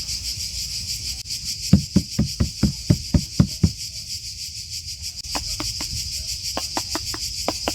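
Cicadas chirring steadily in a high, fast-pulsing drone. Two runs of short dull knocks, about four a second, come through it, one starting under two seconds in and another past the middle.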